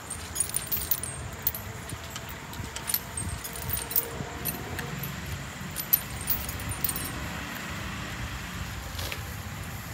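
Metal chains on an elephant's legs clinking and jangling irregularly as it walks, with most of the clinks in the first seven seconds or so.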